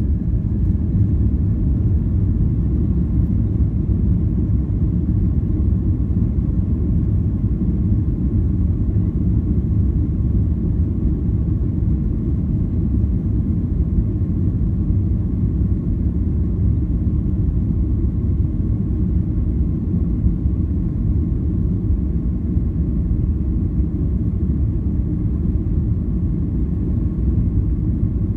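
Boeing 737-800 heard from inside the passenger cabin: a steady, even low rumble of engines and airflow with a faint steady whine above it.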